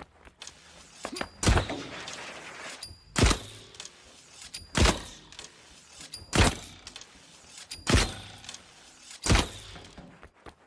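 Cherrywood recurve bow strike sound effect: six sharp strikes about a second and a half apart, each with a short ringing tail.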